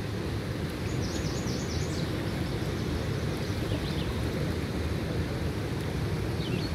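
Steady low rumble of wind buffeting the microphone outdoors, with a quick run of faint high chirps about a second in and a couple more near the end.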